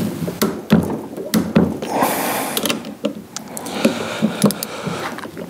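Ratchet head of a click-type torque wrench working bolts on a power steering pump: quick ratcheting rasps, about two seconds in and again near four seconds, among many sharp clicks and metal clinks of the wrench and socket on the bolts.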